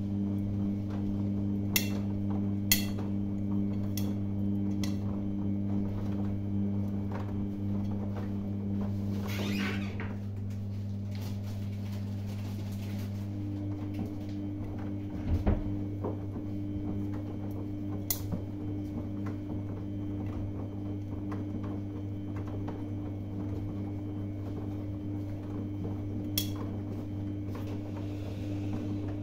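Samsung front-loading washing machine tumbling a load of cottons in its main wash: a steady motor hum with scattered clicks against the drum. The motor's tone drops out about ten seconds in and comes back a few seconds later. There is a heavier thump about fifteen seconds in.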